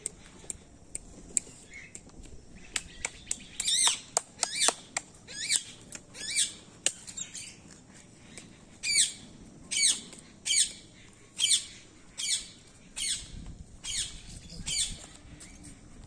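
Macaw squawking over and over, about one harsh call a second, with a pause of a couple of seconds in the middle. Short sharp ticks sound between the calls.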